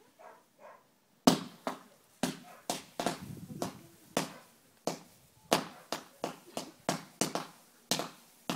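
Fireworks going off in a rapid series of sharp bangs, about two or three a second, starting a little over a second in, with the first bang the loudest.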